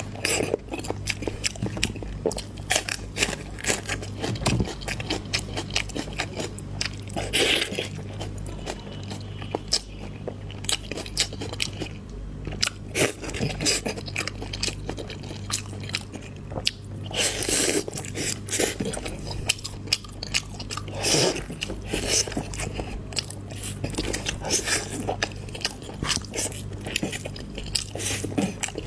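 Close-miked mukbang eating: repeated bites and crunchy, wet chewing with many small clicks, and a few louder bites. A low steady hum runs underneath.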